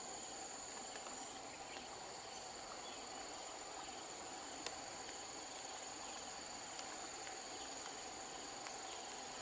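A steady high-pitched insect chorus of two unbroken tones, over the soft hiss of light rain falling on the river, with a few faint ticks.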